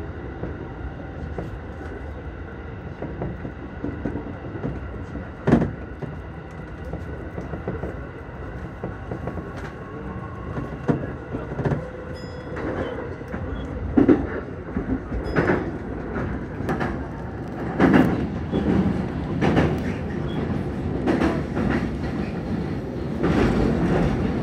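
JR Keihin-Tohoku Line E233 electric commuter train running between stations, heard inside the car: a steady rumble with the wheels knocking over rail joints. The knocks come every second or two and grow more frequent and heavier in the second half.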